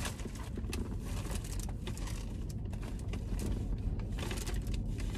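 Paper and plastic takeout bags crinkling and rustling in hands, a run of small crackles and clicks, over a low steady hum.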